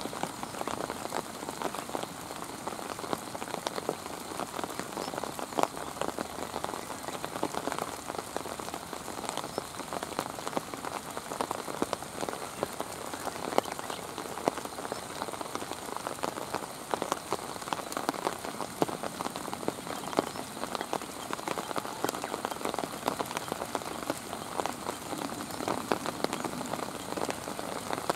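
Steady rain falling, with a constant hiss and many close raindrop ticks and taps on surfaces.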